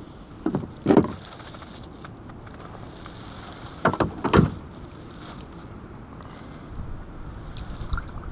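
Hollow knocks against a kayak hull, two pairs of them about three seconds apart and a fainter one near the end, as things are moved about in the boat.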